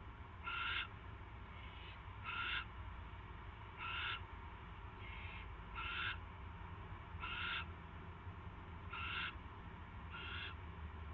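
Barn owl owlets giving their raspy, hissing begging calls, about nine short calls repeated every second or so, the food-begging of chicks in the nest. A steady low hum runs underneath.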